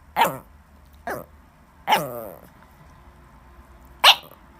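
Dog barking four times in short separate barks, the third one longer and falling in pitch.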